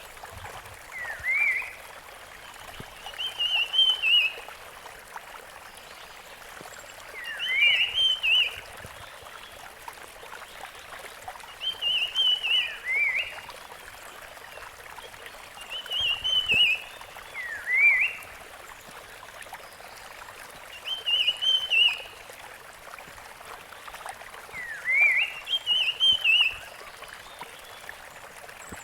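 Rusty-fronted barwing calling: a short warbled phrase followed by quick rising slurred notes, repeated about every four seconds, over a steady background hiss.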